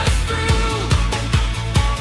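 Background pop music with a steady drum beat, a little over two beats a second, over a sustained bass and held tones, without words.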